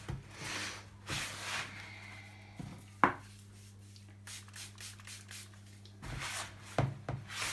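Hands rubbing and working dry, powdery bath bomb mix of bicarbonate of soda and citric acid in a bowl, in repeated scrapes, with one sharp click about three seconds in.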